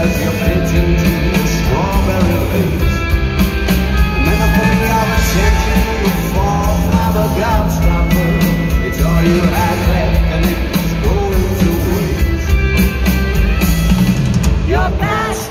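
Rock band playing live: an instrumental stretch of electric guitar lines over bass and steady drums, loud throughout.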